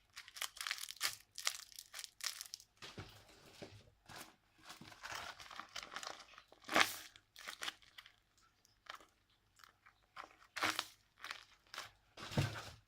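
Paper and plastic crinkling and rustling in irregular bursts as homemade squishies are handled and squeezed.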